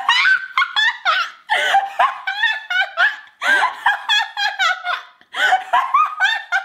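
A woman laughing hard, in long runs of rapid high-pitched bursts broken by short pauses for breath.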